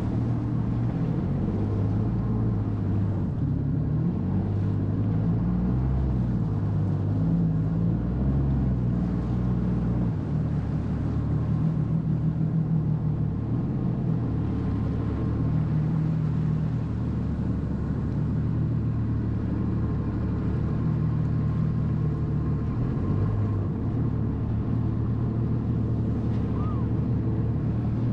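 Jet ski engine running, its low pitch stepping up and down as the throttle changes.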